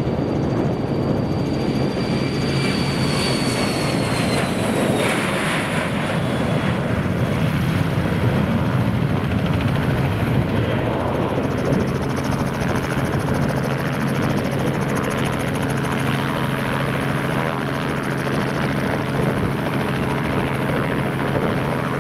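Twin rear-engined business jet taking off at full power. A loud continuous roar, with a high engine whine that drops in pitch a few seconds in as the jet passes, then a steady roar as it climbs away.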